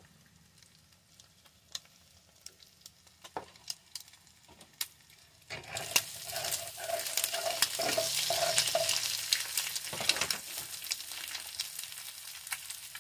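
A few faint clicks, then from about five and a half seconds in, scrambled eggs and green peppers frying in olive oil in a stainless-steel pan sizzle loudly as a spatula stirs and scrapes them, the sizzle easing off a little near the end.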